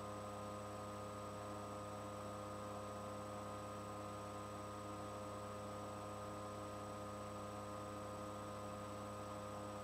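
Steady electrical mains hum with a faint high whine and hiss, unchanging throughout.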